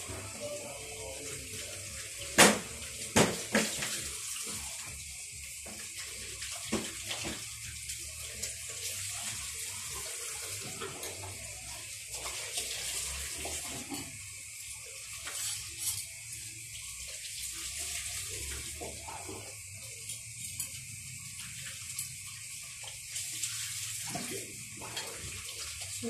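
A steady hiss, with a couple of loud sharp knocks about two and a half and three seconds in and softer knocks here and there.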